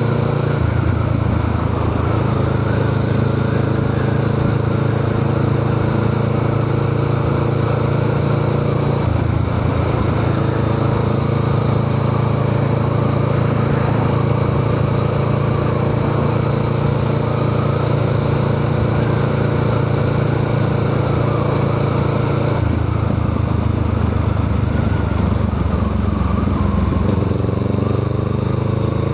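Honda Rebel 500's parallel-twin engine running through a Musarri aftermarket exhaust muffler, holding a steady note that changes about nine and twenty-three seconds in. The pitch rises near the end.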